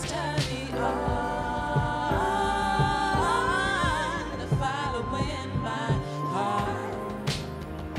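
A woman singing live into a microphone over band accompaniment, her voice holding and sliding through long wavering notes.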